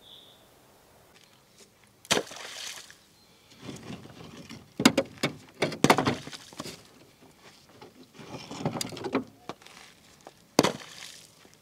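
Broken bricks being taken from a truck's wooden cargo bed and thrown down: a string of sharp knocks and clatters, brick on brick and on wood, several close together around the middle.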